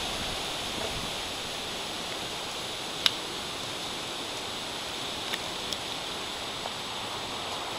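Steady hiss of tropical-storm rain and wind through the trees, with a few sharp ticks, the loudest about three seconds in.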